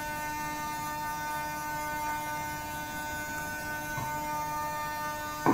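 Steady electrical hum of a stationary metro car's onboard equipment, a few even tones held unchanged while the train stands in the tunnel, with one faint click about four seconds in.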